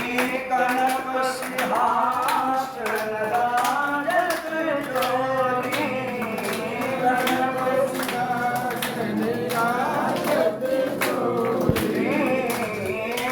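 Hindu devotional aarti being sung, a melody with long held notes over a steady rhythmic percussive beat.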